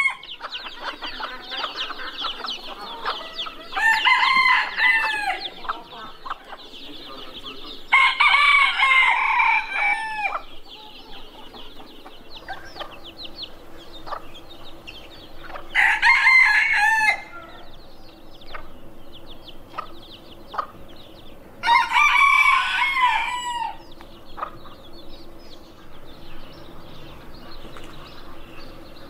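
Steinpiperl bantam roosters crowing four times, each crow lasting a second or two, spaced several seconds apart, with soft clucking from the flock between crows.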